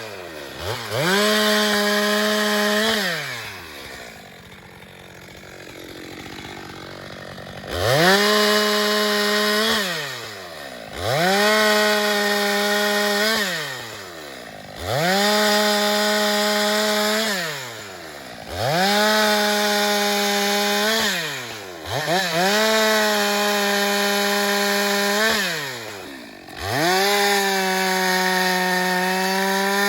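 Two-stroke chainsaw revved to full throttle again and again, about seven times, each time holding a steady high note for two to three seconds as it cuts through wood, then dropping back to idle. There is a longer idle about a quarter of the way in.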